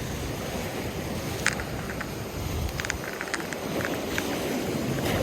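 Wind rumbling on the microphone outdoors, with a few short sharp clicks scattered through it.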